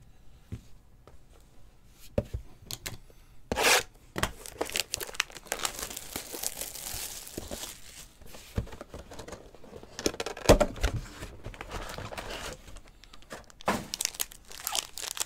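Shrink wrap being torn off a 2020 Panini Certified football card box and the foil packs inside crinkling as they are pulled out and handled, with the densest tearing and rustling about four to eight seconds in. Sharp knocks of the cardboard box are heard too, the loudest about ten seconds in.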